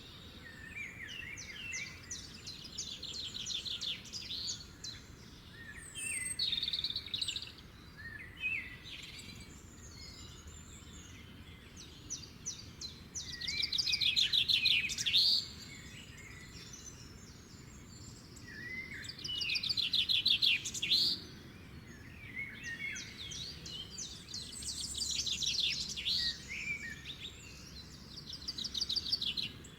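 Songbirds singing in fast trilled phrases a second or two long, with quieter chirps and short whistled glides between them; the loudest phrases come about halfway through and again a little after.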